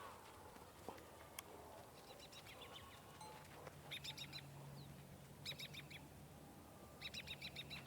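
Birds calling faintly: quick runs of short, high chirps that come in several bursts, the clearest in the second half.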